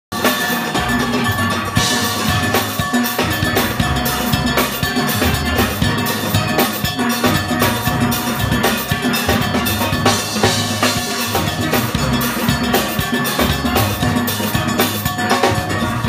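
Steelband engine room playing: drum kit and stick-struck percussion beating out a steady, busy rhythm, with steel pans sounding along.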